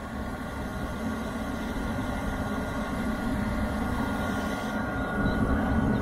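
Diesel air heater running steadily on its own after the glow plug has switched off: a continuous low combustion rumble with the hum of its fan, growing gradually louder. This is its normal running sound once the clogged atomizer screen has been cleaned.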